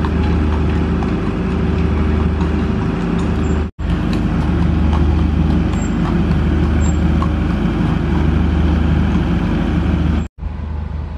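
Steady motor-vehicle engine drone with road noise, as heard on the move. The sound cuts out briefly twice, about four seconds in and near the end.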